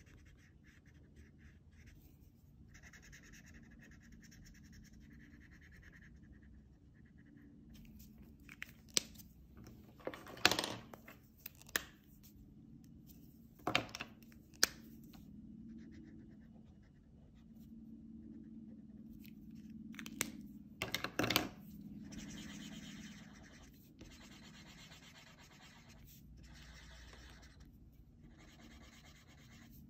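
Felt-tip marker coloring on paper: soft, repeated scratchy strokes of the tip. A few sharp clicks and knocks break in as markers are handled, loudest about ten seconds in and again around twenty-one seconds.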